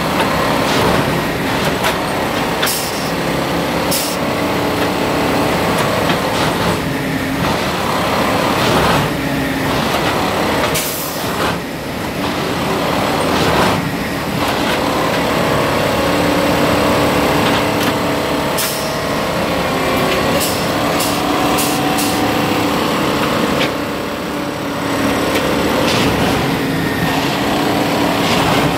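Rail track tamping machine at work: its diesel engine runs steadily with its pitch and level swelling and easing, and short, sharp hisses of released air break in several times.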